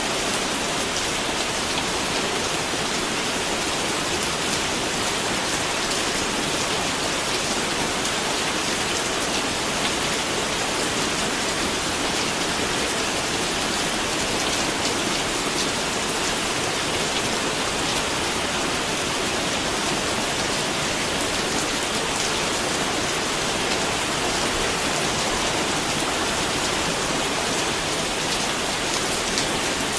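Steady rain falling and pattering on a surface, with many fine drop ticks and no thunder.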